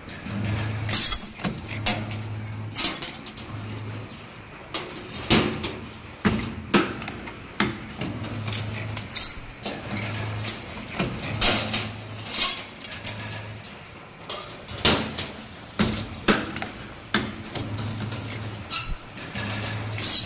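Automatic flat wire bending machine at work: short bursts of low electric hum as it cycles, with many sharp metallic clacks and knocks in between.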